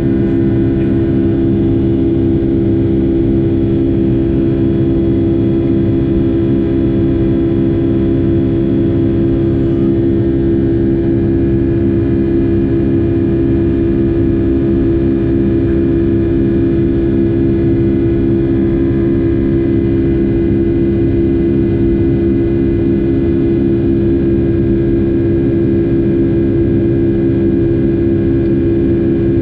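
Rolls-Royce RB211 turbofans of a Boeing 757-200 at high thrust, heard from inside the cabin: a steady, loud buzz of many stacked tones over a low rumble, the engines' fan 'buzz' sound.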